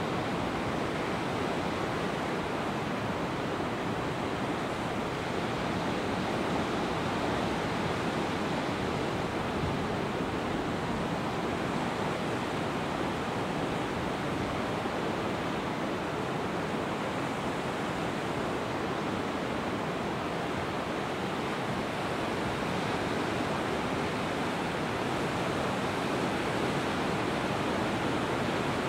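Ocean surf breaking on a rocky shore, heard from high above as a steady, even wash in which no single wave stands out.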